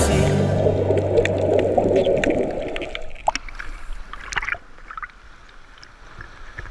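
Muffled underwater rushing and bubbling heard through an action camera's waterproof housing during a scuba diver's ascent. About three seconds in, the camera breaks the surface and the sound turns thinner: water splashing and slapping against the housing, with a few sharp knocks.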